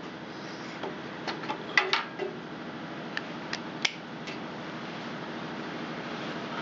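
Scattered light metallic clicks and clinks, about seven of them in the first four seconds, from a spark tester and tools being handled and fitted to the engine's plug lead. Under them runs a steady fan-like hum.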